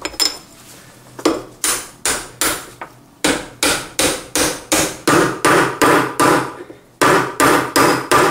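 A hammer strikes a metal tube driver again and again, driving a new bearing down onto a Toyota Corolla gearbox shaft. There are about twenty sharp metallic blows at a steady two to three a second, with a short break shortly before the end.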